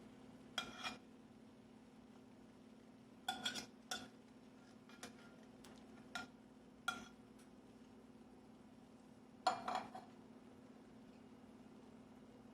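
Metal utensil clinking and knocking against cookware in a handful of short scattered bursts, over a faint steady hum.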